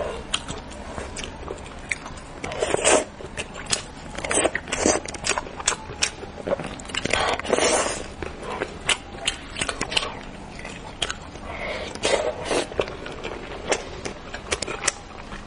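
Close-miked eating of spicy braised ray (devil fish): wet chewing and biting, with many short sharp clicks and smacks and a few longer, louder bursts.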